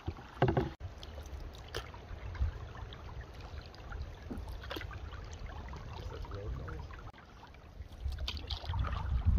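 Canoe being paddled through still water: repeated paddle strokes and water sounds over a steady low rumble, with one louder stroke about half a second in.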